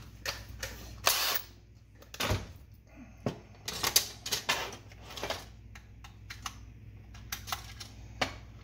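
Irregular clicks and clinks of small hardware and tools being handled on a workbench, with a brief rustle about a second in and a dull thump a little after two seconds.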